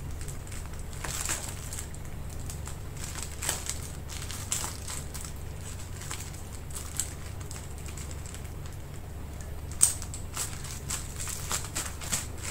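Clear plastic bag crinkling in short rustles as its neck is twisted and tied off with a rubber band, with a sharper click about ten seconds in, over a steady low hum.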